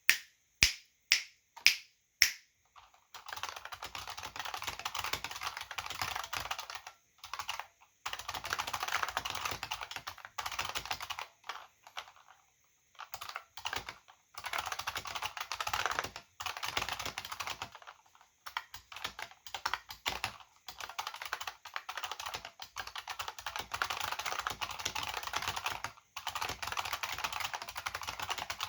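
AT&T KBD 305B-AA keyboard's buckling-spring switches under two-part PBT keycaps. It opens with five loud single key strikes about half a second apart, then runs into fast continuous typing in bursts with brief pauses.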